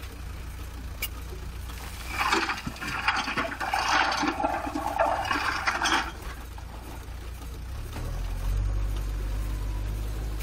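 Stones and soil pouring and clattering out of a JCB 3DX backhoe loader's front bucket into a tractor trailer for about four seconds, over the loader's diesel engine running. The engine note rises about eight seconds in.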